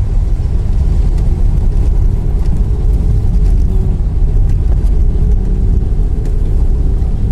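Steady low rumble of a car moving slowly, heard from inside the car, its tyres running over a wet, water-covered road.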